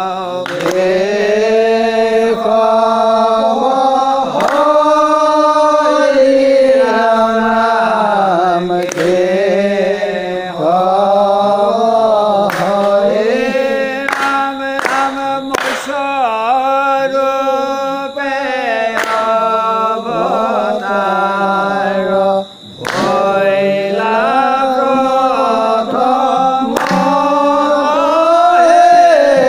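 Assamese devotional nam-prasanga singing, a chant sung in long, sliding melodic phrases with hardly a break.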